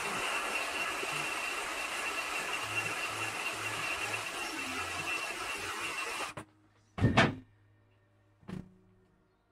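Handheld electric heat gun blowing steadily with a faint high whine, switched off about two-thirds of the way in. Then a sharp knock, the loudest sound, and a smaller knock about a second and a half later.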